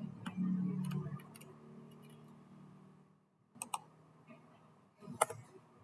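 Scattered computer mouse clicks: a few single clicks, a quick double click about three and a half seconds in, and a louder click near the end. A low hum fades out over the first few seconds.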